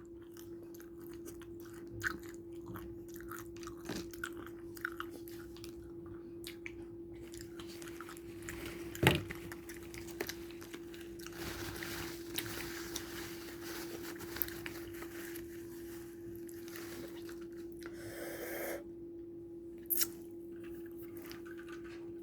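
Close-up chewing and biting of crispy fried chicken, with small crunches throughout and a louder crunch about nine seconds in, over a steady low hum.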